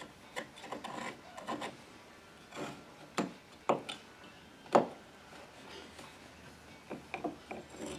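Knife blade scraping and picking debris from the cut edges and corners of a floor opening: short rasps for the first couple of seconds, then several sharp taps, the loudest about five seconds in, and a few small clicks near the end.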